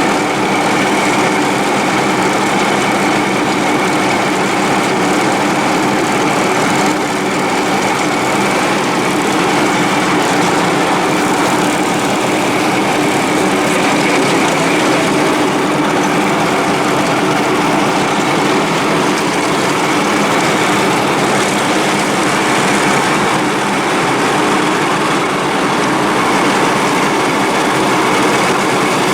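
Dixon 72-inch mower's engine running steadily under test, with an intermittent misfire that the owner puts down to a failing ignition coil.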